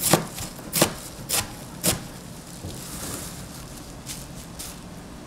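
Knife chopping pig's trotters (jokbal) on a cutting board: a run of sharp chops about half a second apart in the first two seconds, then two fainter knocks about four seconds in.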